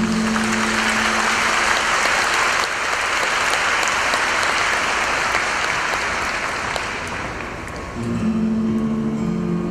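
Audience applauding, fading away about eight seconds in as two acoustic guitars begin playing.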